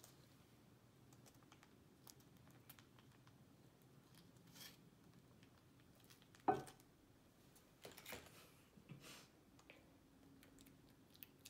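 Faint crinkling and rustling of a small MRE cheese-spread pouch being handled and squeezed out, with one sharp knock about six and a half seconds in.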